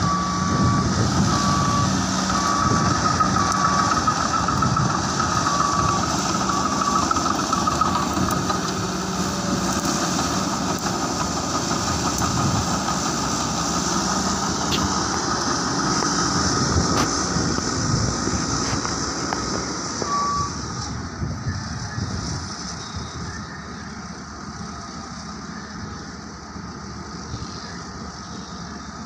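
Diesel engine of a heavy earthmoving machine trimming coal cargo, its reversing alarm beeping about once a second for the first eight seconds and once more later. The machine noise drops away in the last third.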